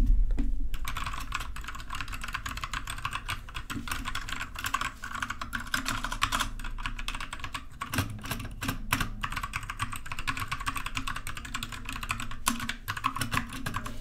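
Fast, continuous typing on a budget compact mechanical keyboard with brown switches: a dense run of key clicks with spring noise audible in the switches, a sign of a cheap board. A low thump comes right at the start, before the typing begins.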